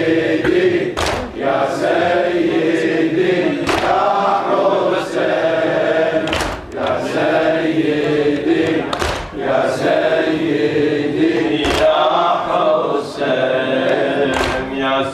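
A group of men chanting a latmiya (Shia mourning lament) together in unison, with a loud collective chest slap landing about once a second in time with the chant.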